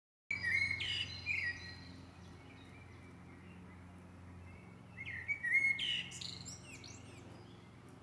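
A songbird singing two short, varied song phrases, about four and a half seconds apart, each mixing whistled notes with quick high sweeps.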